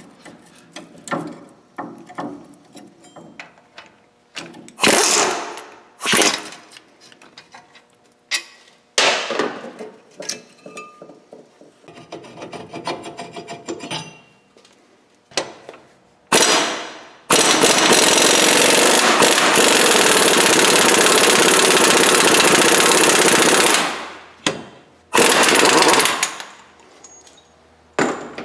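Pneumatic impact wrench undoing the front brake caliper and hub bolts. It fires in several short bursts that each wind down, then in one long run of about six seconds from a little past the middle, with another short burst near the end. Light clanks of steel parts being handled come between the bursts.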